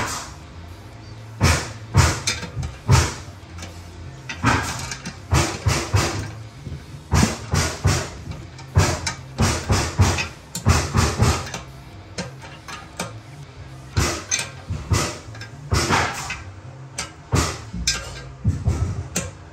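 Combination wrench turning the tank-to-bowl bolt nuts of a toilet, making a long run of irregular metallic clicks and taps as it is fitted, turned and repositioned on the nuts.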